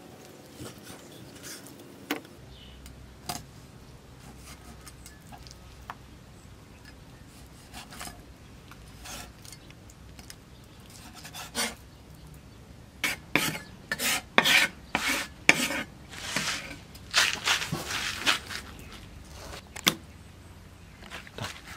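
Steel meat cleaver scraping and sliding on a wooden chopping block while cutting snakehead fish fillets. It is faint at first, then about halfway through comes a quick run of louder rasping scrapes across the board.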